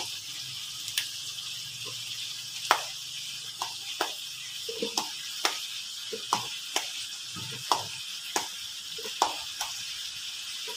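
Green chilies being snapped into pieces by hand and dropped into a plastic blender jar: a string of irregular light snaps and clicks over a steady background hiss.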